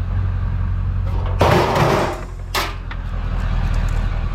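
A rusty steel barbecue grill being handled: a half-second metal clatter about a second and a half in, then a shorter knock about a second later, over a steady low engine hum.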